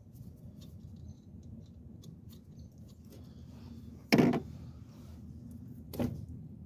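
Locking pliers clamped on a rubber fuel line being handled: faint metal clicks, then a loud sharp clack about four seconds in and a smaller one about two seconds later.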